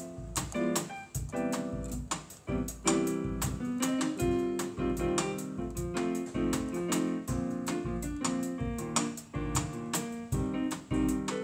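Electronic keyboard played with both hands in a piano voice: a steady run of chords and melody notes.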